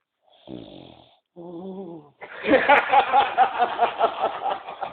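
Loud snoring: two short, pitched breath sounds, then from about two seconds in a long, loud snore that flutters rapidly several times a second.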